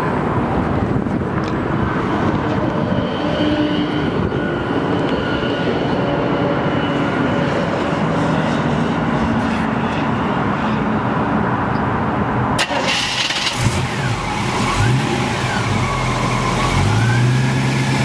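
The hot rod's fresh 350 V8 crate engine running at idle just after being started, breathing through headers into a dual exhaust. In the last few seconds its note is deeper and steadier, with a few small rises and dips in pitch.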